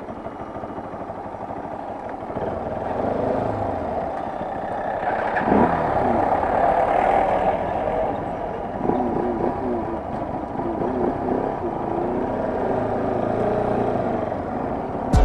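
Motorcycle engine running on the move, its pitch rising and falling with the throttle.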